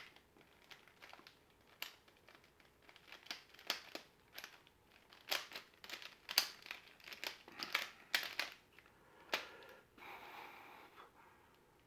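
Plastic mirror cube being turned by hand: quick, irregular clicks and scrapes as its layers snap round, some in fast clusters.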